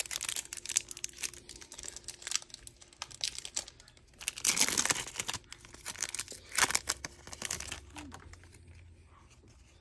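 Foil Pokémon Celebrations booster pack wrapper being torn open and crinkled in the hands: a run of sharp crackles, loudest about halfway through, dying down in the last couple of seconds.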